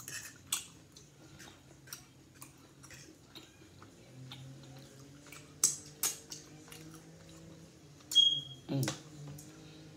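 Metal fork clinking and scraping on a plate, with chewing sounds between. A brief high squeak and a couple of louder knocks come about eight seconds in.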